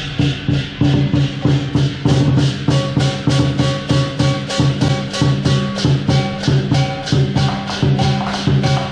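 Lion dance percussion: Chinese drum, gong and clashing cymbals playing a fast, steady beat, with sharp cymbal clashes about four times a second.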